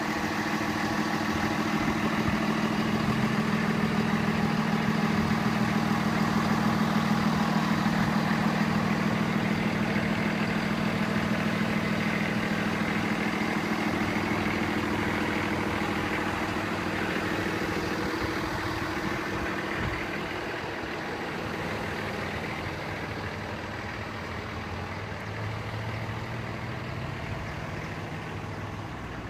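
Fire engine's diesel engine idling steadily, a constant low drone that grows gradually quieter over the second half.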